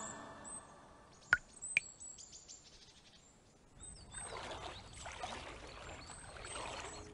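Music fades out, leaving faint high bird chirps and two sharp ticks. About four seconds in comes soft splashing and rippling of water as a swimmer moves through a pool.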